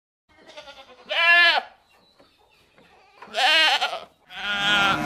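Domestic goat bleating three times, about two seconds apart, the last bleat longer and wavering.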